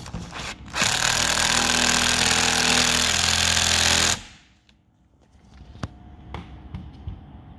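Cordless impact driver with a T30 Torx bit hammering a screw home for about three seconds, then stopping abruptly. It is securing the window motor to a new front window regulator. A few light clicks follow.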